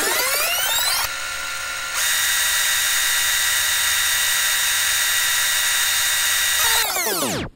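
A motorised whirring sound effect that spins up, holds a steady high whine and winds down again, cutting off just before the end: the sound laid over a fast-forward passage.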